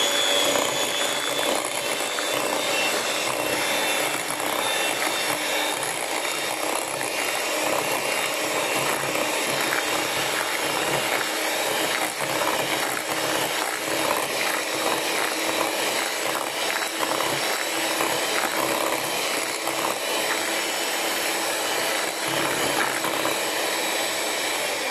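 Electric hand mixer running steadily at speed, its beaters whipping cream, sugar and eggs into a thick batter in a ceramic bowl.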